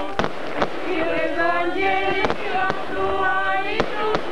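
A small group of voices singing a slow Byzantine-rite liturgical chant in long held notes. Sharp cracks, like firecrackers, break in several times.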